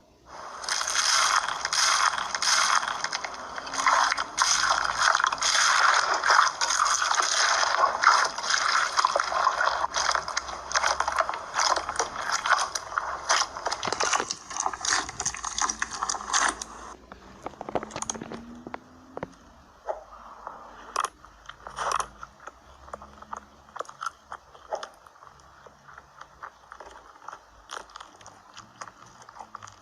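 Slime being squeezed and worked by hand, making a dense run of fast crackling clicks that thins out about halfway through into scattered clicks and pops.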